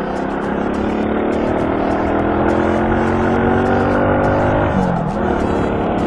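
Suzuki Shogun Pro 125's single-cylinder four-stroke engine pulling under acceleration, its pitch rising steadily. Near the end the pitch drops suddenly at a gear change and starts to climb again.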